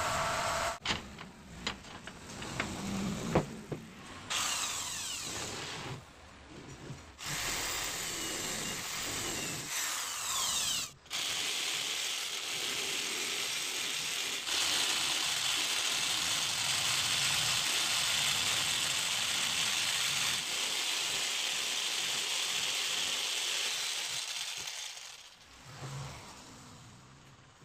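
Electric jigsaw cutting a plywood sheet, a steady run of sawing noise that fades out near the end. Before it come short, choppy snatches of woodworking machine noise.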